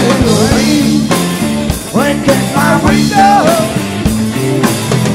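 Live rock band playing, with drum kit, bass and electric guitars. A lead line bends up and down in pitch over the top around the middle.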